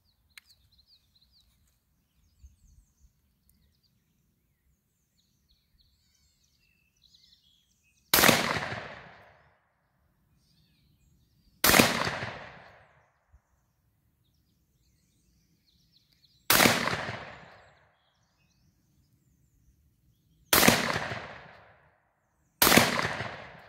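Five shots from a G-Force GF1 12-gauge semi-automatic shotgun firing 3-inch shells, each a sharp report that rings out and fades over about a second and a half; the first comes about eight seconds in, the last two about two seconds apart. Faint bird chirps in the quiet before the first shot.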